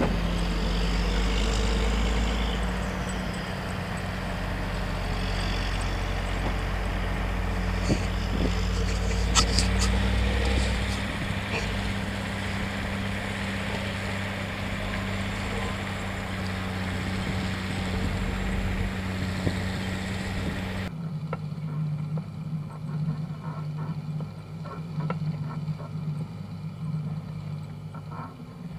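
John Deere four-wheel-drive tractor's diesel engine running steadily under load as it pulls away with a freshly loaded manure tanker, with wind on the microphone. About three-quarters of the way in the sound cuts abruptly to the engine heard close behind the tractor, lower and duller.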